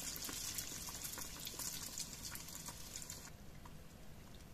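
Yeast-dough doughnuts (pączki) deep-frying in a pan of hot oil: a soft, steady sizzle with fine crackles, its high hiss dropping away about three seconds in.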